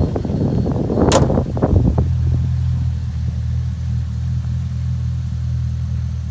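The 2010 Corvette Grand Sport's 6.2-litre V8 idling. The sound is uneven, with a sharp click about a second in, then settles at about two seconds into a steady, even low idle.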